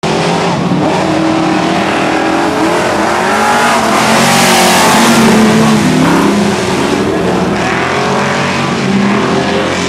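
A pack of winged dirt-track sedan race cars, several engines revving together as the field circles the oval. The sound is loudest about four to five seconds in, as the cars pass close by.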